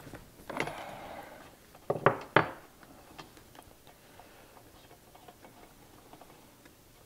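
Wrench loosening the spark plug on a Stihl MS391 chainsaw: a short scraping turn about half a second in, then two sharp metal clicks around two seconds in, followed by faint light ticks.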